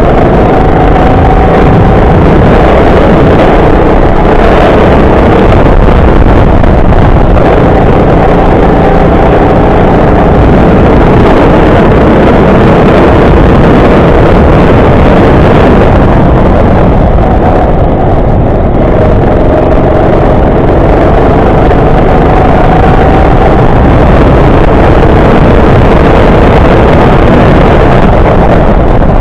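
Racing go-kart engine running hard, its pitch repeatedly rising and falling as it revs up and drops back. Very loud throughout.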